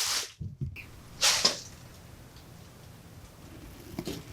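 TIG welding arc hissing, then cutting off suddenly less than half a second in as the power drops out while the tungsten is dipped into the weld puddle. A second short, loud hiss comes about a second later.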